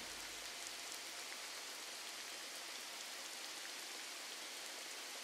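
Faint, steady rain ambience: an even hiss of falling rain with no other sound.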